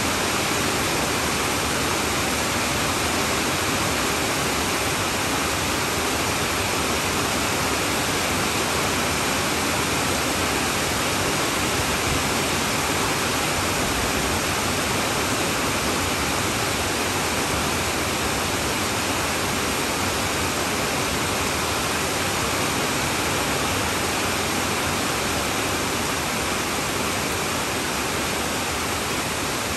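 Heavy rain falling on a tin roof: a dense, steady hiss of drops.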